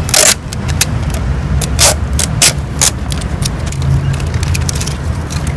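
Hard clear-plastic GoPro display case being handled and opened: scattered sharp clicks, taps and knocks of the plastic, over a steady low rumble.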